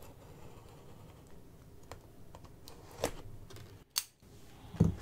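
Light clicks and taps of hands handling a cardboard shipping box, with three sharper clicks near the end.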